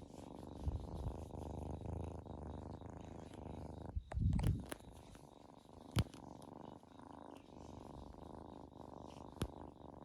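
A cat purring steadily close to the microphone, with a brief louder rustle or bump about four seconds in and two sharp clicks later on.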